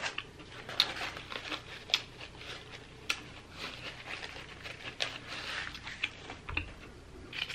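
Faint scattered clicks and soft rustling of close-up handling, with a paper napkin rubbed across the mouth about four seconds in.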